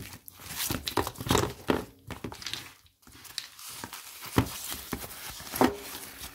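Small gel polish bottles and their packaging being handled: a run of short, irregular clicks and knocks with crinkling of wrapping.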